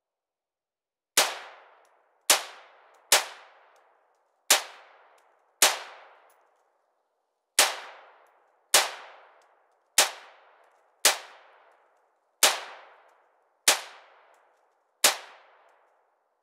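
AR-15 rifle fired shot by shot, twelve single shots roughly a second apart with a short pause midway, each shot trailing off in a ringing echo.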